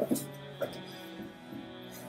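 Soft background music: slow plucked guitar notes over sustained tones.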